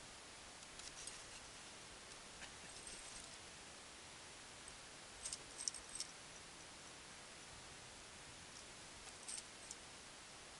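Near quiet with a few faint, light clicks from handling a fishing rod and reel, a small cluster of them about five to six seconds in.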